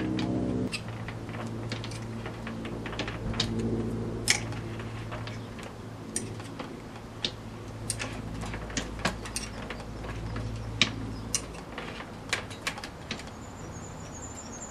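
Irregular metal clicks and knocks from the depth adjustment of an Alaskan chainsaw mill being set, over a low steady hum.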